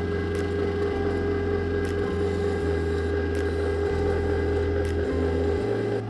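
Background music: a slow bass line stepping between held notes, with a soft tick about every second and a half, over a steady hum.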